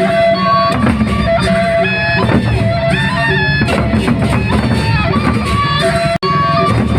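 Gendang beleq procession music: drums under a melodic line of held notes that step from one to the next, with a brief sudden dropout about six seconds in.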